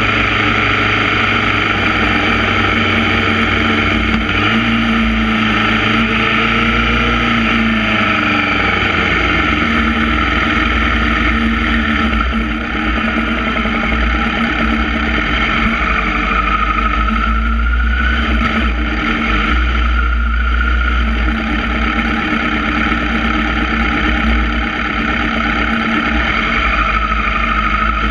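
Sport motorcycle's engine heard from a camera mounted on the bike, its pitch falling as the bike slows from track speed, then running steadily at low revs.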